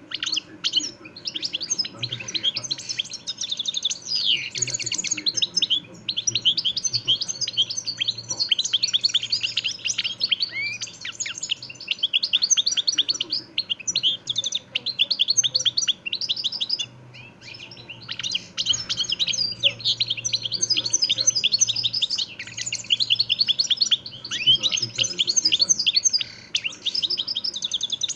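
European goldfinch singing its fast, twittering song almost without a break, with a pause of a second or two a little past halfway.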